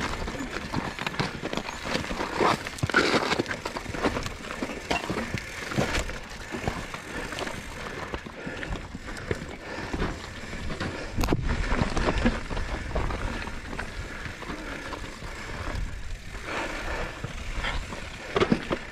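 Mountain bike rolling over a rocky trail: the tyres crunch over rock and gravel, and irregular clatter and knocks come from the bike, with heavier jolts now and then.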